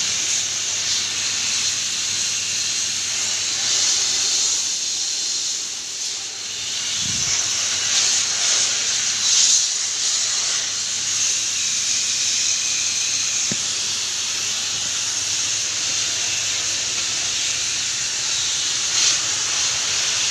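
High-pressure water spray hissing steadily from a hose nozzle onto an air-conditioner unit during a wash, swelling louder a few times as the jet moves. A couple of brief low knocks sound around a third and two-thirds of the way through.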